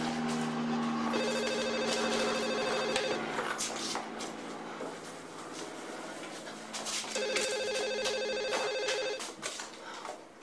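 Cordless desk phone ringing twice, each an electronic trilling ring about two seconds long, the rings about six seconds apart.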